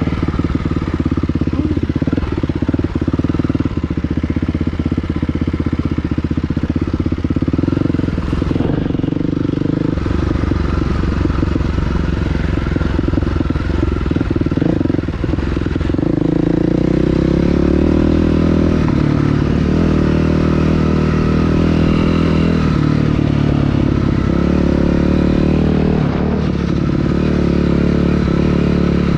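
Dirt bike engine running while being ridden, a steady motorcycle engine note that gets louder from about halfway through.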